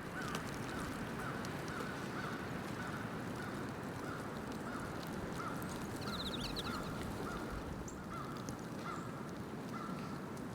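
A bird calling in a long, even series of short, slightly falling notes, about three a second, over a steady hiss of wind and snow. A brief, quick, higher trill from another bird comes about six seconds in.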